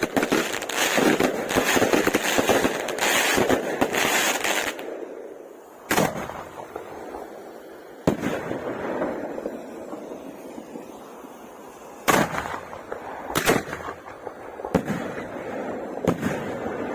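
Fireworks going off: a dense run of crackling and popping for about the first five seconds, then separate sharp bangs every one to two seconds with crackle between them.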